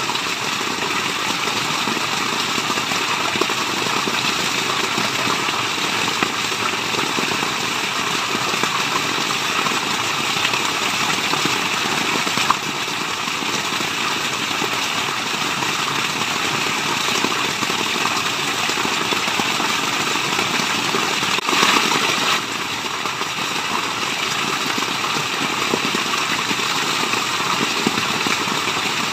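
Steady rush of running water, with a brief louder swell a little past two-thirds of the way through.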